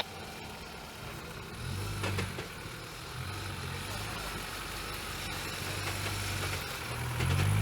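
Off-road vehicle engine running, its low note swelling and easing several times and growing louder near the end.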